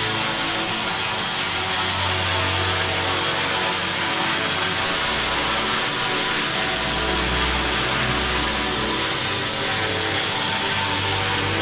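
Brushless electric motor and propeller of a small RC airplane running steadily, a continuous whine over rushing noise.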